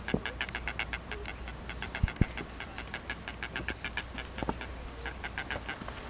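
Blue-footed booby calling: bouts of short, raspy, wheezy pulses in quick succession, about six a second. Two sharp knocks come about two seconds in.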